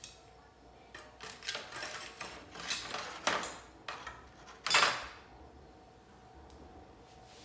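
A run of rough scraping strokes on the thick steel griddle plate being seasoned, several in quick succession with the loudest near the end of the run.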